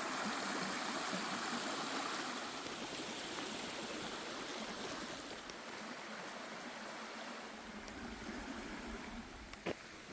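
Mountain stream running steadily, gradually fading; a single sharp click near the end.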